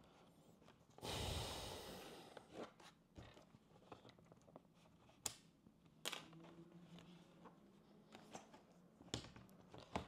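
Faint handling noise of a laptop's plastic bottom cover being worked loose: a brief scraping rush about a second in, then a few scattered sharp plastic clicks and knocks.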